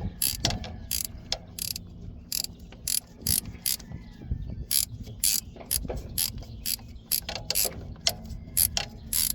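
Hand ratchet wrench clicking in short strokes, roughly three clicks a second, as a long starter-motor mounting bolt is backed out.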